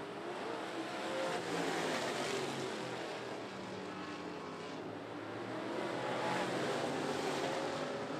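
Several dirt-track race cars running at speed around the oval, their engine notes rising and falling as they lap.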